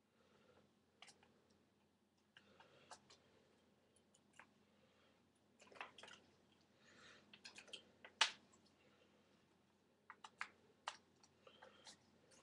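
Faint clicks and rustling handling sounds of a compact digital camera as its battery pack is fitted, with one sharper click about eight seconds in.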